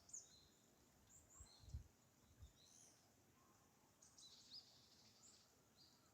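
Faint songbird calls outdoors: clusters of short, high chirps and whistled notes, coming in bursts, with a few brief low thuds about one and a half to two and a half seconds in.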